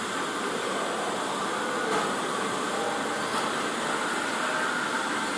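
Welding arc hissing steadily as the cap pass is laid around a stainless steel pipe joint.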